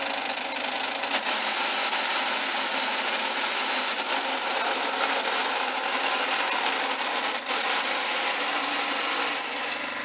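John Deere STX30 lawn tractor running and driving, with a harsh grinding from the drivetrain that the owner thinks is a failing transmission, or something stuck so it won't shift into gear. Near the end the grinding drops away, leaving the engine running steadily.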